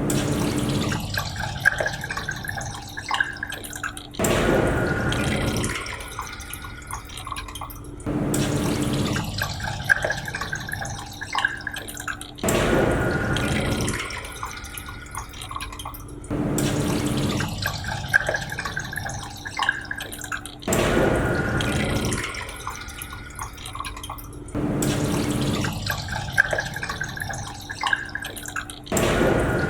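Men's urinal flushing: water rushes in about every four seconds, each rush settling into trickling and dripping before the next.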